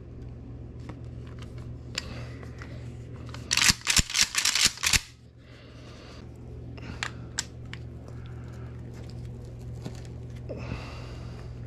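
Clicks and rattles of a Mossberg 590 pump shotgun and its parts being handled, with a quick run of loud, sharp clacks about three and a half seconds in and scattered small clicks before and after, over a steady low hum.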